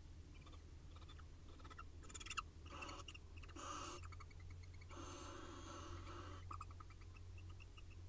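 Barn owls giving harsh rasping calls in the nest box during courtship: a few short bursts, then a longer one of about a second and a half about five seconds in. A faint steady low hum runs underneath.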